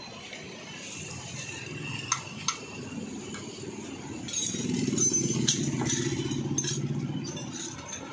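Two metallic tool clinks, then about four seconds in the Honda Click scooter's single-cylinder engine starts and runs at idle with an even, fast pulse, fading toward the end, over passing street traffic.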